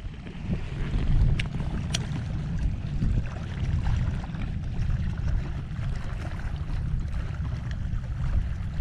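Wind rumbling on an action-camera microphone, with water lapping around a wading angler. Two light clicks come about one and a half and two seconds in.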